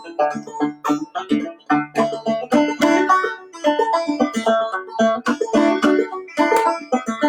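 Clawhammer banjo tune: rapid plucked notes in a steady driving rhythm, with a low drone string ringing under the melody.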